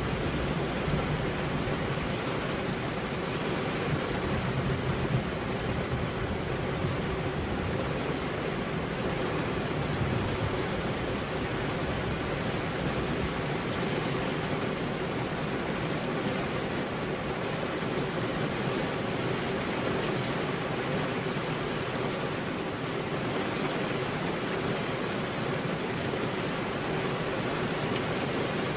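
Heavy rain falling steadily on a road, a dense, even hiss without thunder.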